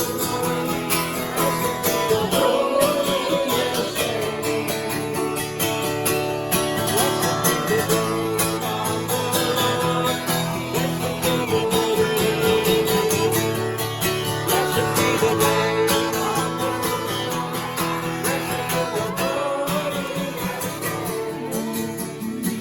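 Acoustic guitar music, a tune played over steady lower notes.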